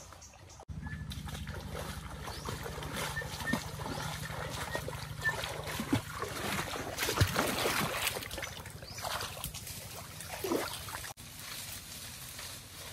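Splashing footsteps of a person wading quickly through a shallow, muddy stream, loudest a little past the middle, over a low steady rumble.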